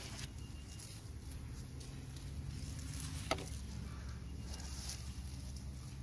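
Hands and a short spade digging through loose, damp soil, with soft rustling and scraping of dirt and dead potato vines over a low steady rumble, and one sharp click a little past halfway.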